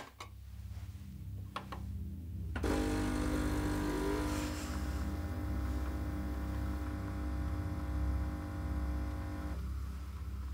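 Espresso-style coffee machine: a click as it is switched on, a steady low hum, then a louder, steady pump buzz from about two and a half seconds in as it brews into the cup. The buzz stops about a second before the end, leaving the low hum.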